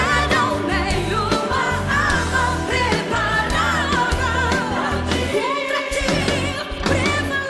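Worship music with singing over a steady bass line; the bass drops out about five and a half seconds in.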